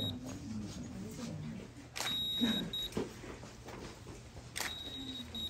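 A high electronic beep repeating about every two and a half seconds: each time a click, a long steady beep and a short one after it. It comes twice, about two seconds in and near the end, over faint murmuring voices.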